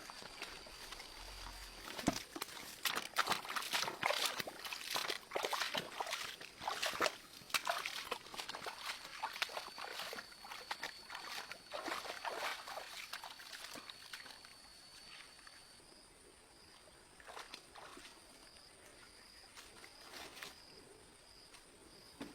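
Water splashing and sloshing in irregular bursts for about twelve seconds, then thinning to occasional splashes, over a steady high thin tone that turns to a pulsing one near the end.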